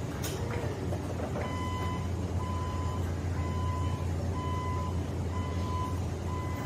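Electric Hyundai reach truck's warning beeper sounding about once a second, each beep a steady high tone about half a second long, starting about a second and a half in, over the steady hum of its hydraulic pump motor as the mast lifts a loaded pallet. A single sharp click comes just at the start.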